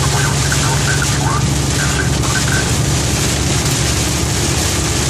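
Steady noise inside a vehicle's cab driving on a highway through heavy rain and wind: a constant engine hum under an even hiss of rain, wind and road spray.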